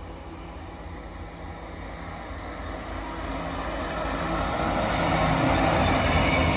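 Class 66 diesel freight locomotive approaching, its two-stroke V12 engine note and rumble growing steadily louder.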